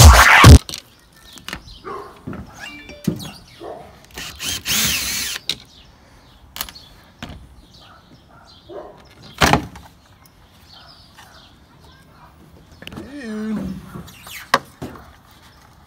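Electronic music cuts off just after the start. Then come scattered clicks, knocks and thunks of a plastic third brake light housing being worked loose from a truck's cab roof by hand, with one sharp knock about halfway through.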